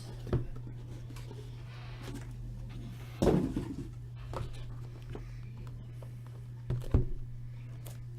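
Sealed cardboard card boxes being worked loose from a tight case: a few scattered knocks and scrapes of cardboard, the loudest about three seconds in, over a steady low hum.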